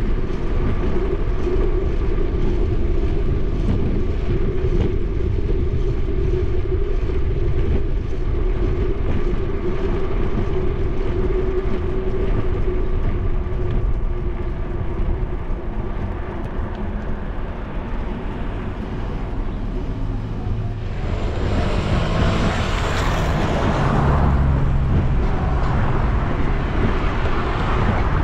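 Steady rolling noise of bicycle tyres with wind on the microphone. About three-quarters through, a motor vehicle passes close by, its rush swelling and then fading.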